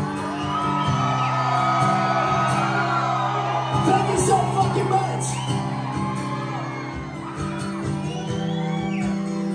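Concert crowd whooping and yelling over a sustained chord held by the band.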